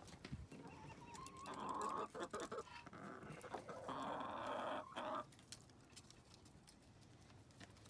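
Domestic hens clucking as they come out of the coop, with two drawn-out calls, one about a second and a half in and one about four seconds in, and small scratching clicks. It grows quieter after about five seconds.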